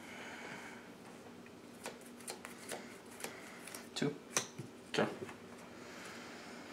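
Sleeved trading cards being handled and laid down on a playmat: a string of light card clicks and flicks, with a few sharper snaps about four to five seconds in.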